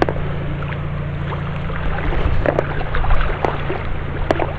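A steady low motor hum under a haze of water noise, with scattered light clicks.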